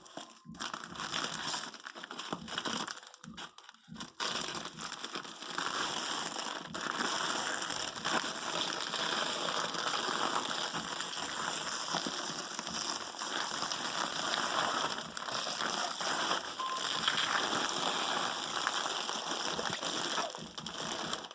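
Tight packaging being unwrapped by hand: a few separate rustles, then continuous crinkling and crumpling of the wrapping.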